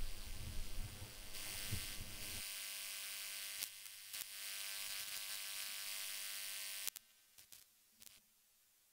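Steady electrical hiss with a faint buzzing hum, low rumble underneath for the first couple of seconds, cutting off suddenly about seven seconds in and followed by a few faint clicks.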